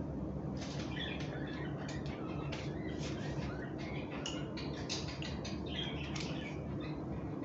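Small birds chirping repeatedly in short, irregular calls over a steady low background hum.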